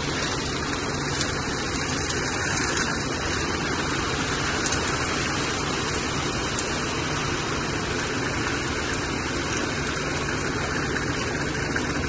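Ready-mix concrete truck's diesel engine running steadily, its drum turning to discharge concrete down the chute.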